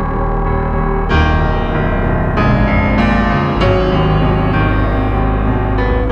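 Keyboard music with a piano-like tone, new chords struck every second or so.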